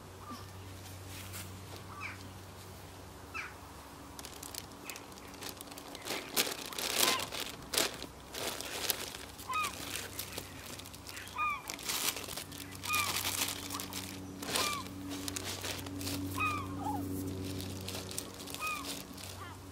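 Plastic freezer bags crinkling and rustling as they are handled with rubber-coated gloves. A bird calls repeatedly in short arched chirps, more often in the second half, over a low steady hum.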